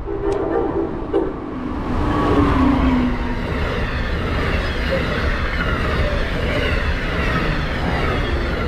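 Passenger train passing at speed. A horn chord sounds in the first few seconds and drops slightly in pitch, then comes the steady loud rush and rumble of the cars going by.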